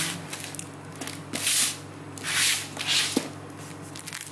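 Packing tape being pulled off a cardboard shipping box: three loud ripping pulls, the first at the start and the others about a second and a half and two and a half seconds in.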